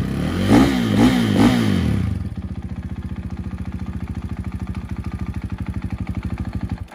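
KTM 450 EXC single-cylinder four-stroke engine blipped three times in quick succession, then settling to a steady idle about two seconds in. The sound cuts off abruptly just before the end.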